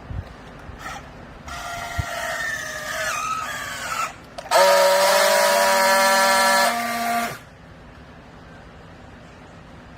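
Vertical downstroke baler's hydraulic system whining under load: a wavering whine that shifts in pitch, then a louder steady whine for about two seconds that drops and cuts off about seven seconds in.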